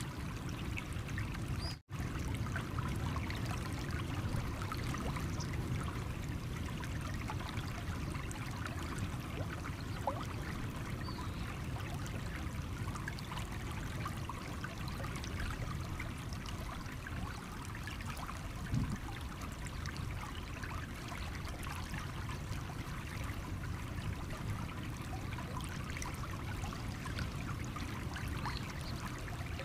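Small stream running over stones: a steady trickle of flowing water, with a momentary dropout in the sound about two seconds in.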